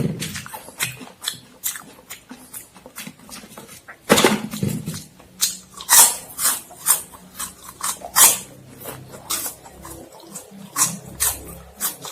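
Close-miked biting and crunching of Momogi puffed corn-stick snacks, with chewing in between: an irregular string of crisp crunches, the loudest bites about four, six and eight seconds in.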